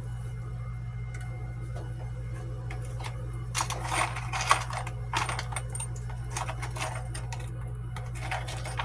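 Irregular bursts of rapid clicking and rattling from small hard parts and tools being handled, over a steady low hum. The bursts come from about three and a half to five and a half seconds in, and again briefly near the end.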